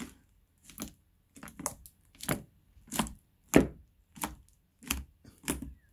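Hands pressing and patting fluffy pink shaving-cream slime on a plastic tub lid, making about ten short squishes at a rough, steady rhythm of one every half-second or so.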